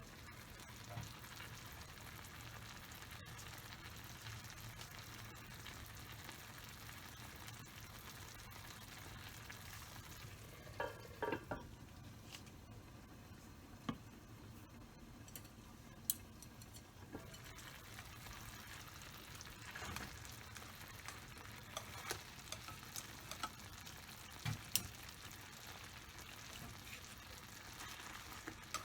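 Food sizzling steadily in a frying pan, with scattered clicks and knocks of a cooking utensil against the pan, including a short cluster about eleven seconds in.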